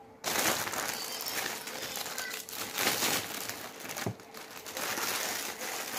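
Thin plastic bag crinkling and rustling as it is handled and peeled away from chilled chocolate cookie dough, with one soft thump about four seconds in.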